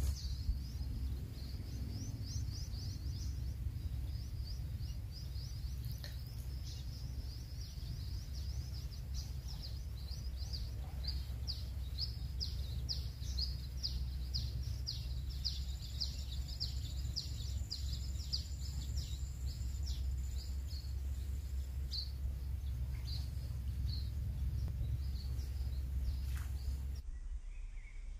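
A bird singing a long run of quick, repeated high falling notes, over a steady low rumble.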